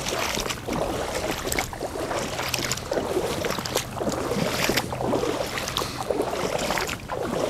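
Wellington boots wading through shallow floodwater: sloshing, splashing strides about one a second, coming close.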